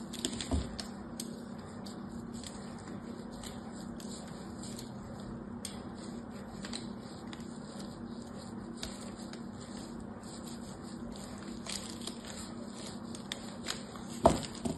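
Faint scratching and small clicks of a thin pointed blade scoring lines into a bar of Fa hard soap, with the bar handled and turned on the cloth-covered table. A single sharp knock comes near the end.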